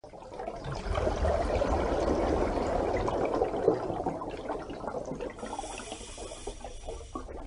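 Water rushing and bubbling in a dense, flickering wash. A faint high ringing shimmer comes in about five seconds in and cuts off just before the end.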